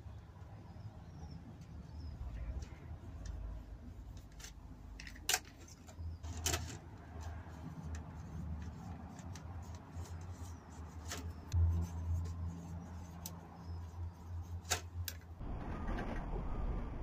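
A marker pen writing on plastic plant labels, with scattered sharp clicks and scratches of the pen and labels being handled. About 15 seconds in this gives way to the crumbly rustle of compost being scooped into plastic module trays.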